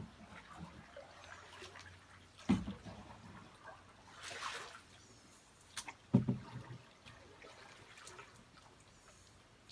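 Water trickling and dripping around a paddled boat on a calm river, with a short splash about four seconds in and two dull thumps, like a paddle knocking the hull.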